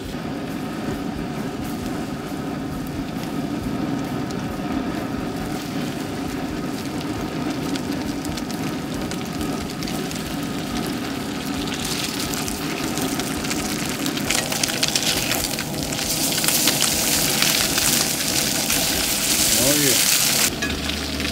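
Blackened crappie fillets frying in butter in a cast-iron skillet over a gas burner, with the burner running steadily underneath. The sizzle grows about halfway through, becomes a loud hiss, and cuts off abruptly near the end.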